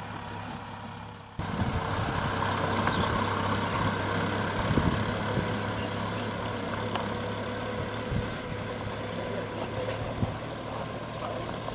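Farm tractor engine running steadily as it pulls a tiller, abruptly louder and closer about a second and a half in.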